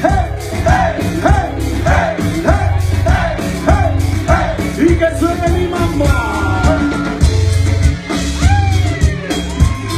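Live band playing amplified music with drums and bass under it, and singing. A short swooping melodic phrase repeats about twice a second for the first half, giving way to longer held and sliding notes.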